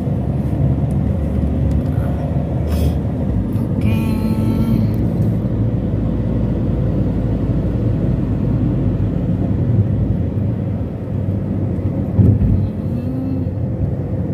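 Car interior noise while driving: a steady low rumble of engine and tyres on the road, heard from inside the cabin. There is a brief thump about twelve seconds in.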